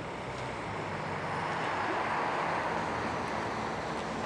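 Road traffic: a vehicle passing by, its tyre and engine noise swelling to a peak about two seconds in and then easing off, over a faint steady low hum.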